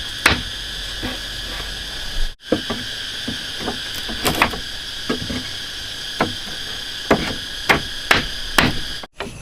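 Sharp, separate blows of a hand tool striking wood or bamboo, about a dozen at uneven spacing, roughly one a second, while building a wall. A steady high insect drone runs underneath.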